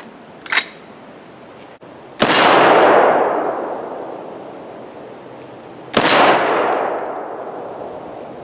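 Two single shots from a 7.62x39 AR-15 rifle fitted with a muzzle brake, about four seconds apart, each followed by a long fading echo. A short click comes just before, about half a second in.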